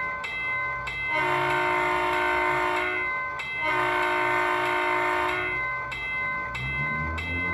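Model-train sound decoder (Soundtraxx) on an HO-scale diesel commuter train: the horn sounds two long blasts over a steadily ringing bell. Near the end the diesel engine sound revs up.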